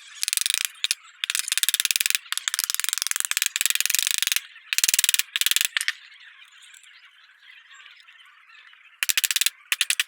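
Bursts of rapid metallic clicking, a few seconds long, as nuts are fitted onto a ceiling fan's body.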